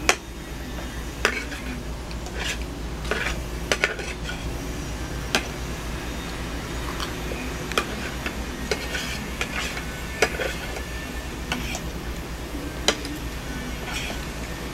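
Metal spoon and fork clinking and scraping against a plate in irregular taps, roughly one a second.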